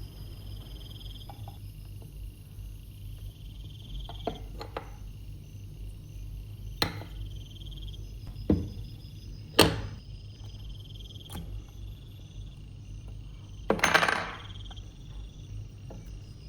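Scattered sharp knocks and clacks of hard objects handled on a workbench: single strikes about 4, 7, 8.5 and 9.5 seconds in, and a louder short clattering burst near the end, over a faint steady hum.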